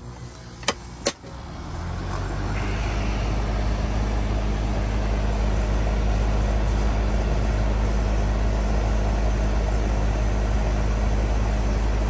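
Two sharp clicks as the pull-out is pushed into the outdoor AC disconnect, then the central air conditioner's outdoor condenser starts up: compressor and fan motor come up over about a second and run with a steady hum and fan noise. The compressor is pumping the refrigerant down into the condenser, the low-side pressure falling.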